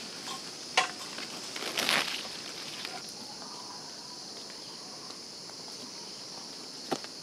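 Steady high-pitched insect buzz in dense vegetation, with a sharp knock about a second in, a short rustle around two seconds, and another click near the end.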